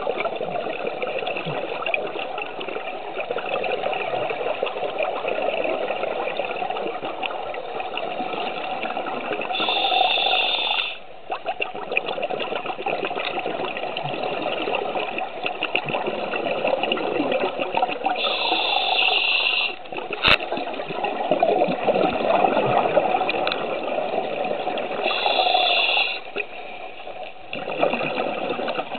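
Scuba diver breathing through a regulator underwater: long bubbling exhalations, broken three times by a short hissing breath in, each followed by a brief lull. A single sharp click sounds about two-thirds of the way through.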